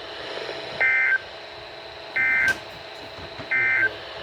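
Three short bursts of NOAA Weather Radio SAME data tones, the warbling two-tone digital code, each under half a second and evenly spaced about a second and a third apart: the end-of-message signal that closes the warning broadcast.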